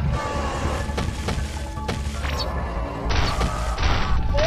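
Cartoon fight sound effects over background music: a few sharp hits about a second in and just before two seconds, louder crashing noise in the last second and a half, and a quick rising sound at the very end.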